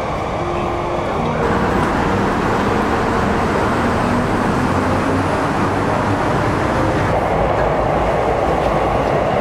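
Rainy city street ambience: a steady, dense rush of traffic and rain noise, with a train on the elevated line among it. It grows louder about a second and a half in.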